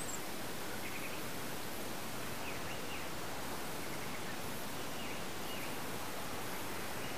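Steady outdoor background hiss with faint, short bird chirps every second or so.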